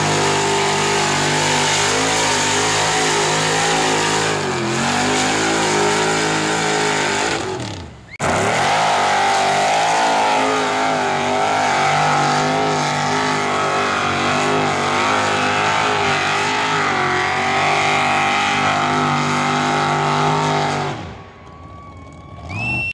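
Mud-bogging truck engines run at high revs while the trucks churn through a mud pit, with the pitch wavering as the throttle works. The sound cuts out abruptly about eight seconds in and starts again, then fades near the end.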